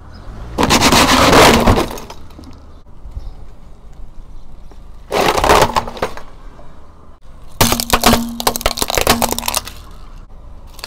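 A car tyre rolling over and crushing hard plastic objects, a plastic carry case among them. Loud cracking and crunching comes in bursts: about half a second in, again around five seconds, and a longer run of sharp cracks from about seven and a half to nine and a half seconds.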